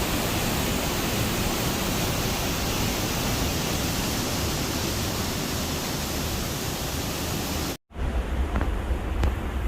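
Rhine Falls: the steady rush of a large waterfall, an even full-range noise with no rhythm. About eight seconds in it breaks off at a cut and returns heavier and lower for the last couple of seconds.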